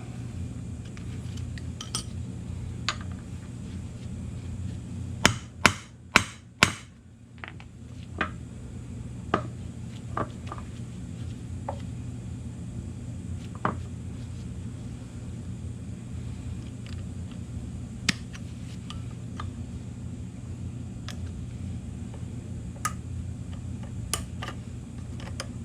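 Hammer blows on metal during a drive shaft universal joint replacement: four sharp strikes in quick succession about five to seven seconds in, with scattered lighter metallic clinks and taps over a steady low hum.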